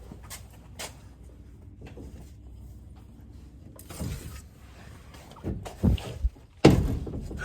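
Handling noise from parts being fetched and moved: scattered light clicks and clunks, a few dull thumps near the end and one louder clunk just before the end.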